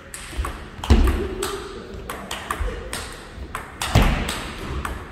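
Table tennis ball being struck by rackets and bouncing on the table in a fast rally, sharp clicks about every half second. Two heavier thuds land among them, about a second in and near four seconds.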